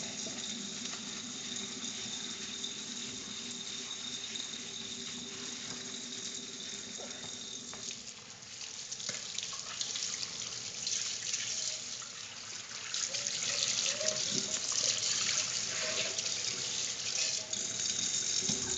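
Kitchen faucet running steadily, then water splashing unevenly off a steel frying pan held under the stream to rinse it. The splashing starts about eight seconds in and is louder than the steady run before it.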